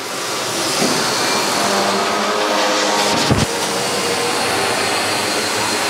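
Steady, loud rushing noise of workshop machinery running in an aluminium boat-building hall, with a faint hum through it. A single low thump comes about three seconds in.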